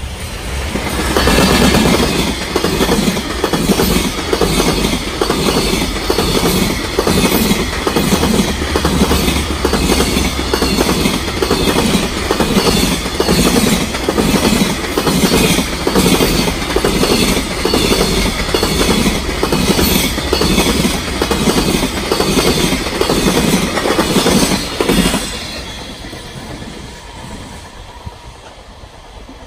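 Long container freight train passing at speed, its wagon wheels clattering over the rail joints in a steady, even rhythm over a low rumble. The clatter stops about 25 seconds in, leaving a fainter rumble as the train moves away.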